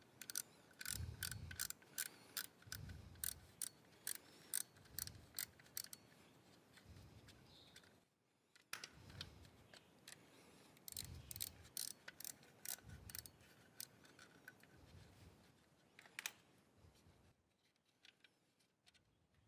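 Socket ratchet wrench clicking in runs of quick clicks, with soft knocks of handling between, as bolts on a scooter's coolant reservoir are worked loose. The clicking pauses twice, gives one last click, and stops a couple of seconds before the end.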